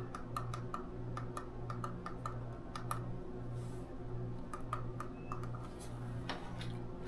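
Irregular small plastic clicks and taps of a small LED camera light being handled and switched, over a low steady hum.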